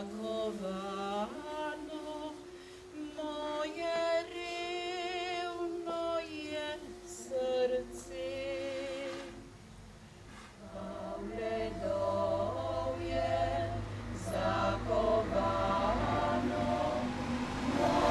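Women's vocal group singing a cappella in several-part harmony, with held notes and vibrato. The singing dips briefly about ten seconds in, then the next phrase begins.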